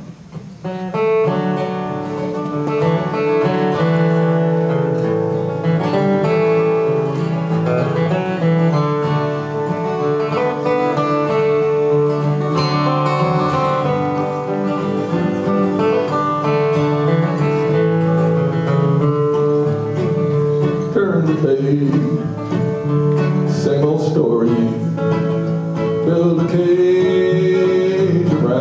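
Two acoustic guitars playing the opening of a folk song together; a man's voice comes in singing in the last quarter.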